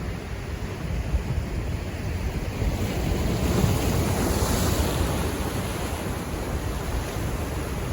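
Pacific Ocean waves washing in, swelling about halfway through into a louder hiss of breaking water, then easing off. Wind rumbles on the microphone underneath.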